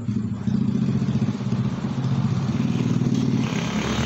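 A motor running steadily with a low drone that pulses rapidly, growing hissier about three seconds in.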